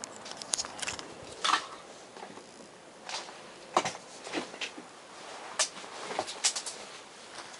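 Camera handling noise: scattered short clicks, knocks and rubbing as the camera is handled.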